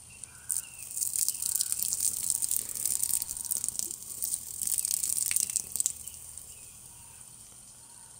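Root beer poured from a can over a marshmallow on a stick, splashing and dripping onto the gravel below. The pour runs about five seconds, then stops.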